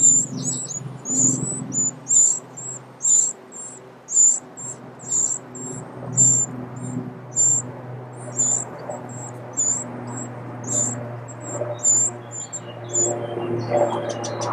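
Eurasian wren nestlings begging in the nest: repeated high, thin peeps, about two a second, as the adult feeds them.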